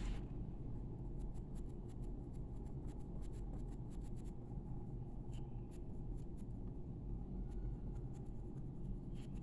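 Coloured pencil scratching on paper in many short, quick shading strokes, over a steady low hum.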